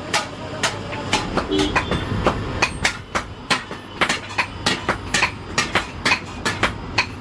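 Hammer striking steel in rapid rhythmic blows, sharp metallic clinks about two a second at first, quickening to about four or five a second from about two seconds in.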